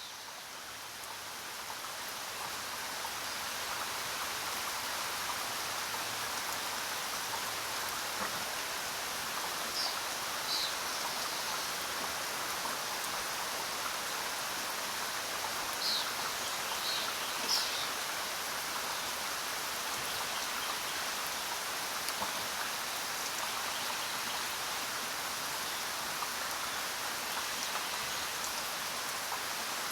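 Steady rain falling, an even hiss that fades in over the first few seconds. A few short, high bird chirps come between about ten and eighteen seconds in.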